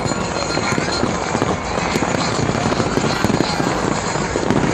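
Large fireworks display: a dense, continuous crackle of many shells bursting at once, with sharp bangs throughout.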